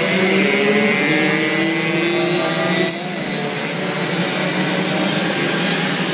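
Several racing mopeds' small engines running hard at once, their buzzing pitches overlapping and rising and falling as the bikes lap the track. The sound dips briefly about three seconds in.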